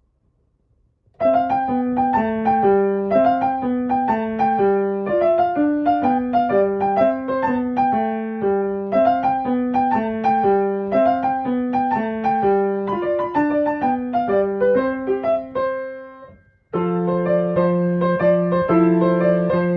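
Background instrumental music: a short melody of separate notes that repeats, stops briefly about three quarters of the way through, then goes on with fuller, held chords.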